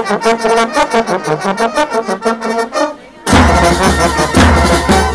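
Military band playing a march: brass and clarinets play a melody in quick repeated notes, then after about three seconds the bass drums and full band come in much louder, with a heavy drum beat about once a second.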